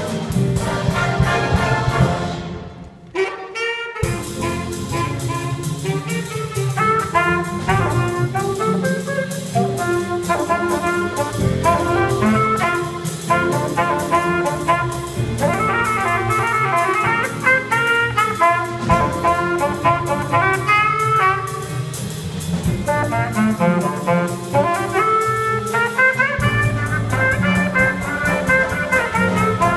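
Student jazz band playing an up-tempo chart, trumpets, saxophones and trombones together over the rhythm section. The band breaks off briefly about three seconds in, then comes straight back in.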